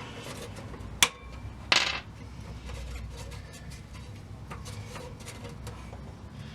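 Metal case of a 1948 Temple G419 radio being handled while parts are worked loose: a sharp click about a second in, then a louder scraping knock, followed by faint scattered ticks and taps.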